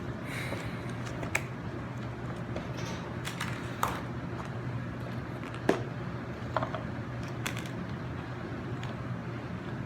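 Handling of the meal: a handful of sharp, scattered clicks and light rustles over a steady low hum.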